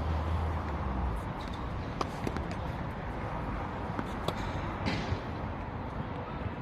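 A few scattered sharp knocks of a ball being struck or bounced over steady background noise, typical of tennis play.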